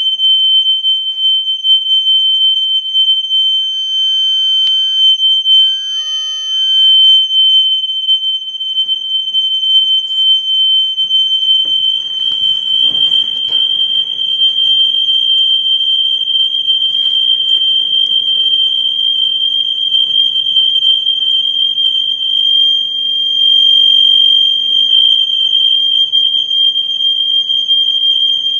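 Electronic alarm sounding one continuous, piercing high-pitched tone, held at a steady pitch without a break.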